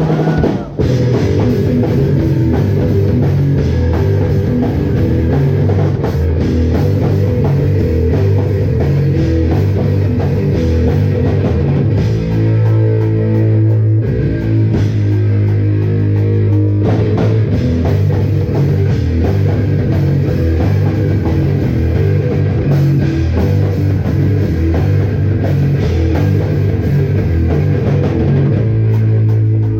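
Live rock band playing loudly: electric guitars and a drum kit over strong low sustained notes, with a brief dip about a second in.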